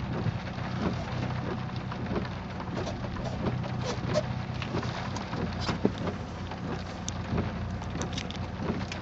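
A Chevrolet Cavalier on the move, with irregular short creaks and clicks from the car's body over a steady low drone of engine and road noise.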